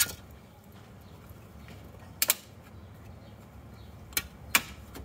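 Several sharp plastic clicks and snaps from brittle dashboard trim and its retaining clips being worked loose: one at the start, a quick pair about two seconds in, and two more near the end.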